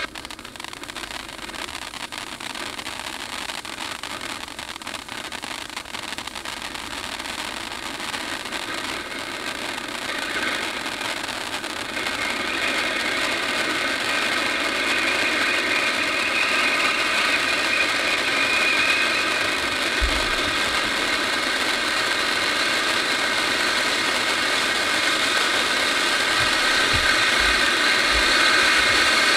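Champion F-020 13-inch cone fountain firework burning, a steady hissing rush of its spark spray that grows louder about a third of the way in and stays strong.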